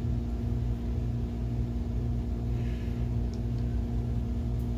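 BenQ MH741 DLP projector running with its lamp lit: a steady hum of its cooling fans with a constant low-pitched tone.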